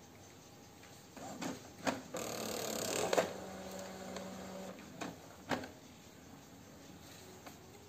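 Epson L3210 ink-tank printer starting up after being switched on. The print mechanism makes a few clicks, a short motor whirr and a steady hum lasting about a second and a half, then two more clicks.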